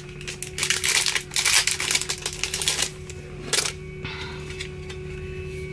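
A pin's packaging crinkling and rustling as it is handled and opened. A dense run of crackles lasts about two seconds, a short burst follows, then softer rustling, over a faint steady hum.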